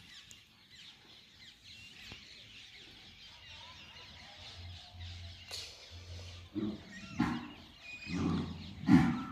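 Cattle lowing in a herd: several short, low calls in the second half, the loudest near the end, over faint bird chirps.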